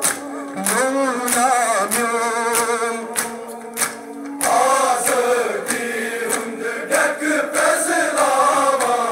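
Kashmiri noha, a Shia mourning elegy, sung by a male voice with the crowd chanting along, over repeated sharp slaps of matam, mourners beating their chests.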